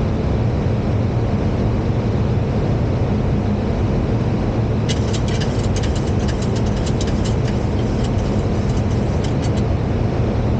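Steady cockpit noise of a Boeing 737 on approach: airflow and engine hum, strongest low down. From about halfway in to near the end there is a run of rapid, irregular crackling clicks.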